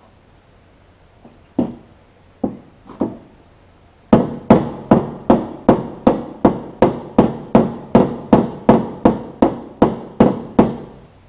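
Hammer blows on the steel of a 1946 Chevy rear fender, knocking out a dent. A few single strikes come first, then a steady run of about two and a half blows a second for six or seven seconds.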